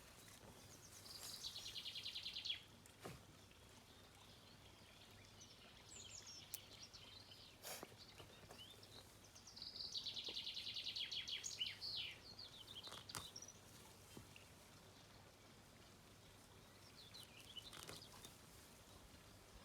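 A songbird singing: two long, rapid trills of quickly repeated notes about eight seconds apart, with shorter, fainter phrases in between and near the end. A few sharp clicks sound among them.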